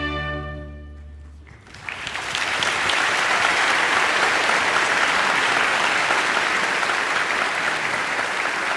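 An orchestra's final chord, with strings, fading away, then audience applause that breaks out about two seconds in and carries on steadily.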